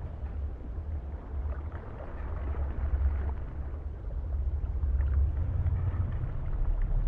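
Low, steady, muffled underwater rumble, water noise picked up by a camera in its waterproof housing, with a faint hiss above it.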